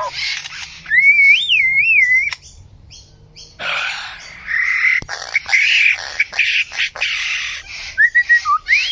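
A bird calling: a wavering, rising-and-falling whistle about a second in, then after a short pause a run of harsh, noisy squawks, and another whistle near the end.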